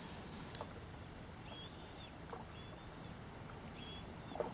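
Quiet lakeside ambience: a steady high insect drone, with a few brief faint high chirps every second or two, a small click about half a second in and a soft knock near the end.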